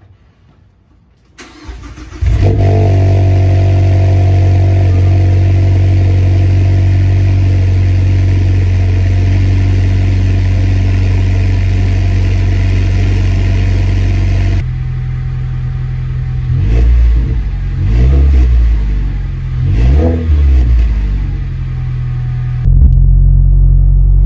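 2016 Mazda 3's 2.5-litre four-cylinder, breathing through a Corksport 60.5 mm cat-back exhaust, starts up at the tailpipe about two seconds in and idles steadily. Later it is blipped three or four times, the exhaust note rising and falling. Near the end it is a louder, deeper drone heard from inside the cabin.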